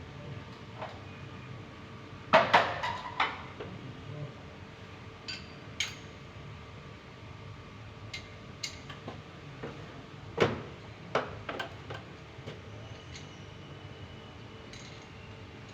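Irregular metallic clinks and knocks of metal parts and tools being handled, some ringing briefly. The loudest come in a cluster about two and a half seconds in and again about ten and a half seconds in.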